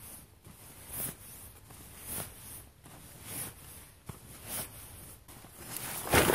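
Nylon rustling as a sleeping bag is pushed handful by handful into its stuff sack, a swish about once a second, with a longer, louder rustle near the end.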